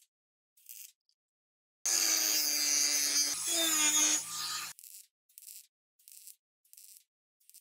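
Short scraping strokes of a hand tool, about two a second, like filing or sawing. They are broken about two seconds in by a power tool running steadily for nearly three seconds, the loudest sound, before the strokes resume.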